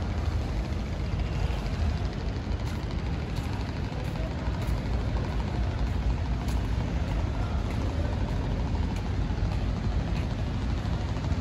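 Wind buffeting the microphone: a steady, rumbling rush with no pauses.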